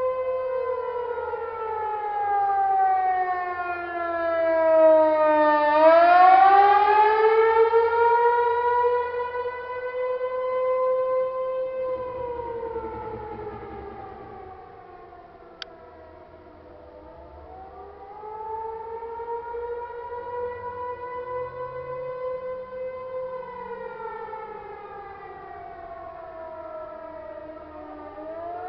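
Outdoor warning siren sounding the attack signal: a slow wail whose pitch falls, rises and falls again, with the loudness swelling and fading as it goes.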